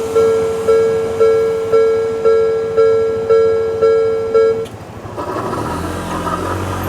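Japanese railway level-crossing alarm ringing its repeated electronic bell tone, about two strikes a second, then cutting off suddenly about four and a half seconds in as the crossing clears. A low, steady road-vehicle engine sound follows.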